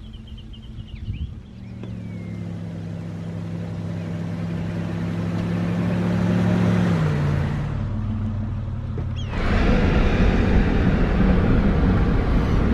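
A 4WD drives up a dirt track and past, its engine growing louder and dropping in pitch as it goes by, with a few faint bird chirps before it arrives. About nine seconds in this cuts to louder, steady engine and road noise inside the moving vehicle's cabin.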